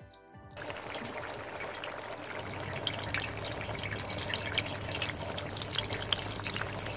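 Breaded, egg-dipped chicken cutlets sizzling and crackling in hot oil in a frying pan over a high flame. The sizzle starts about half a second in and then holds steady.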